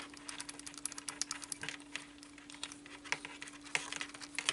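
Small screwdriver driving a 12 mm screw into a model part: a rapid, irregular run of light clicks and ticks, over a faint steady hum.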